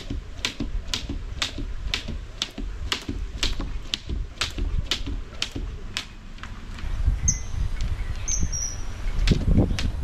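Skipping rope slapping the ground about twice a second in a steady rhythm. It stops about six and a half seconds in and starts again near the end. A few short bird chirps sound during the pause.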